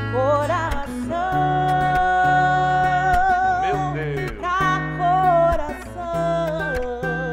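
A woman singing a slow gospel song, holding long notes with vibrato, to an acoustic guitar that is picked and strummed.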